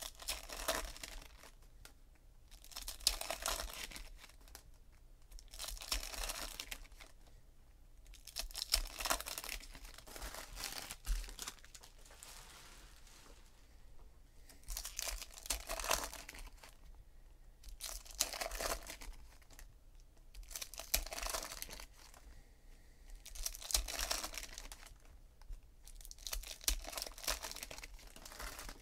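Foil trading-card pack wrappers being torn open and crinkled by hand, one pack after another, with a rustle about every two to three seconds.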